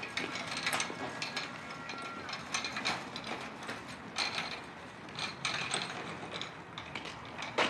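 Wire trolley loaded with newspaper bundles rattling and clattering irregularly as it is pushed over the road surface.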